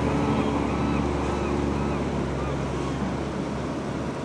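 A steady low engine drone with wind on the microphone; the drone eases off a little near the end.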